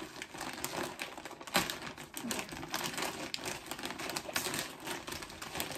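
Plastic mailer bag crinkling and crackling as hands pull and tug at it to get it open, a fast run of sharp crackles with the loudest about a second and a half in.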